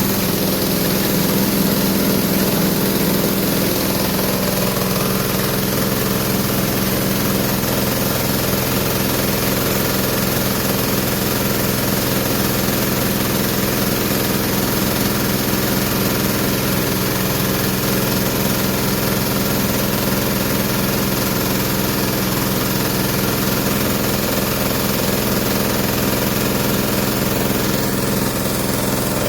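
Grinding mill (a rice-husk grinder) running steadily with a constant loud hum, milling corn kernels into flour.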